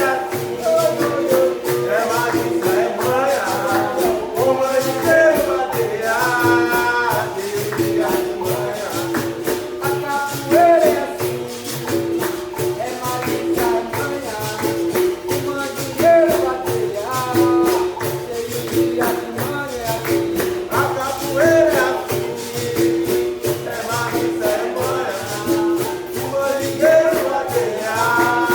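Capoeira music: a bateria of berimbau and pandeiro playing a steady rhythm, the pandeiro's jingles shaking on every beat, with voices singing over it.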